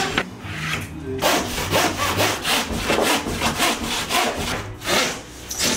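Handsaw cutting through a sheet of insulated plasterboard in quick back-and-forth strokes, about three a second, starting about a second in.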